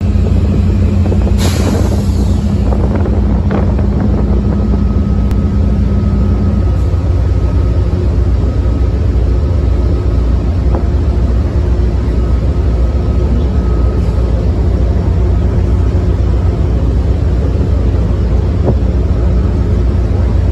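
Steady low engine rumble. A lower hum within it stops about six and a half seconds in, and a short hiss comes about a second and a half in.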